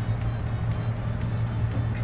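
Background music with a steady low drone.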